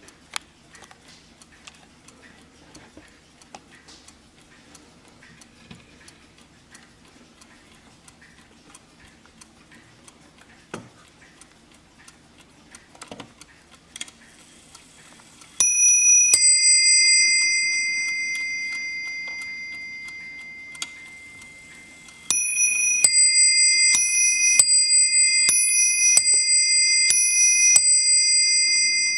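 Warmink mantel clock movement ticking softly, then striking on its two bells: one ding-dong pair halfway through that rings on and fades, and from about three quarters in a steady run of alternating ding-dong strikes, two bell pitches taking turns, that goes on past the end.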